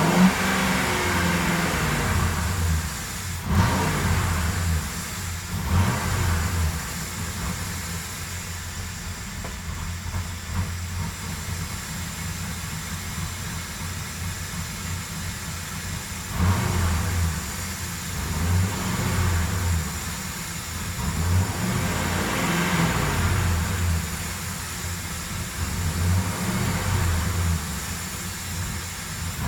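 Ford Crown Victoria's 4.6-litre V8 running, its engine note rising and falling as it is revved several times.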